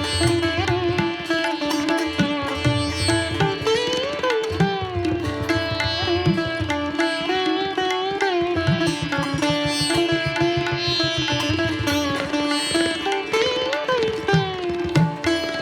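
Instrumental background music: a plucked-string melody with sliding, bending notes over a sustained drone, with steady low rhythmic strokes underneath.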